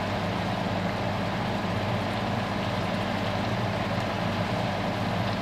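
Steady low hum with an even hiss over it.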